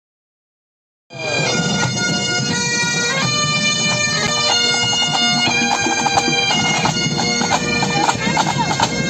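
Pipe band playing: Highland bagpipes sound a melody over their steady drones, with drums beating along. The music cuts in abruptly after about a second of silence.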